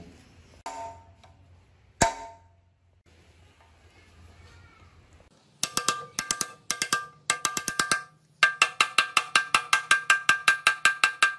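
Hammer blows on a steel rod driving a ball bearing into its seat in the milling machine's housing: a couple of single knocks early, then from about halfway a run of ringing metallic taps that settles into a fast, even hammering of about five blows a second.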